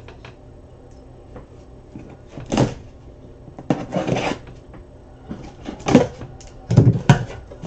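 A cardboard shipping case being handled and opened by hand: scattered scrapes, rustles and knocks of cardboard, with a heavier thump about seven seconds in.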